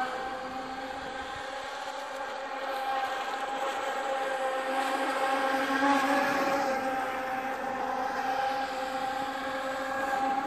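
An NQD PX-16 RC speedboat's twin 2845 3500 kV brushless motors running at speed, giving a steady whine with several pitches at once. It grows louder about halfway through as the boat passes closer, then eases a little.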